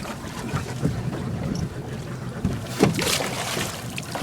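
A boat at sea, its motor making a steady low hum, with wind buffeting the microphone and a sharp knock a little under three seconds in.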